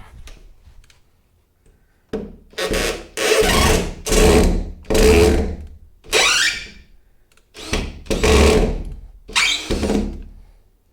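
Power drill driving a screw in a string of short stop-start bursts, about nine in all. The screw is going in hard because there is no pilot hole.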